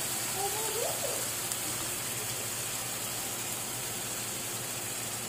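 Steady sizzling hiss of a tofu curry cooking in a frying pan on a gas burner, as the chopped capsicum and onion go in.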